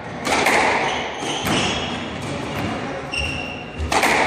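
Squash rally: the rubber ball struck by rackets and slapping off the court walls, several sharp cracks ringing in the hall, with a brief squeak of a shoe on the wooden court floor near the end.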